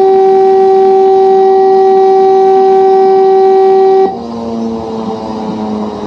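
Helicopter's warning horn sounding as a loud, steady single-pitched tone that cuts off abruptly about four seconds in, leaving fainter, lower tones that waver.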